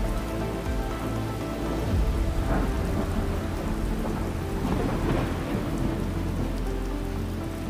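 A steady rumbling, hissing noise that swells twice, over soft music of long held notes.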